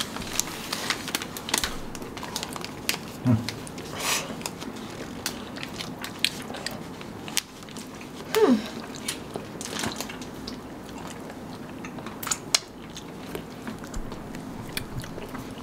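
Close-up eating sounds of chocolate-coated ice cream bars being bitten and chewed: the frozen chocolate shell cracks in many short, sharp crunches with wet chewing between them. Two brief hums of enjoyment come about three seconds in and again past the middle.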